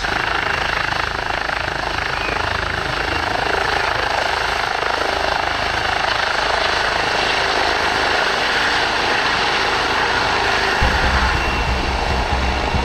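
Eurocopter EC135 helicopter's turbines and rotor running steadily as it lifts off and climbs away, a loud even rush of rotor noise.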